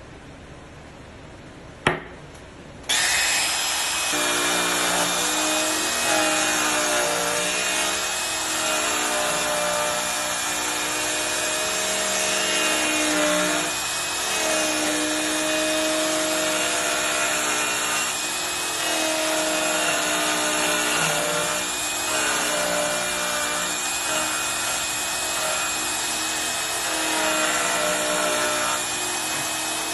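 A sharp click about two seconds in, then a compact trim router starts about a second later and runs steadily while cutting into the edge of a hardwood board. Its high motor whine holds steady while the cutting noise rises and falls as it is fed along the wood.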